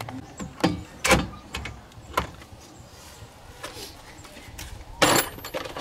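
Metal hand tools knocking and clinking against a car's driveshaft and underbody during repair: a few sharp separate clanks in the first couple of seconds, then a short scraping rattle about five seconds in.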